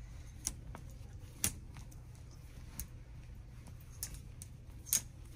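Clothes hangers clicking on a clothing rail as T-shirts are pushed along one by one: about five sharp clicks spaced a second or so apart, over a low steady hum.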